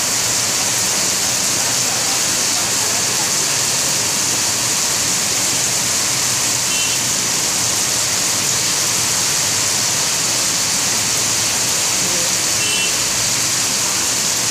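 Heavy rain falling in a steady downpour, with water streaming off a roof edge.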